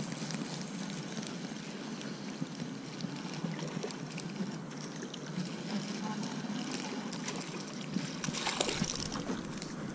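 Spinning reel cranked steadily to reel in a hooked crappie, its gears whirring with small clicks, then water splashing about eight seconds in as the fish is pulled to the surface.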